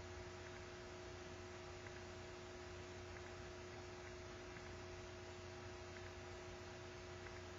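Steady, quiet electrical hum, two fixed tones over faint room noise, with a few very faint small ticks.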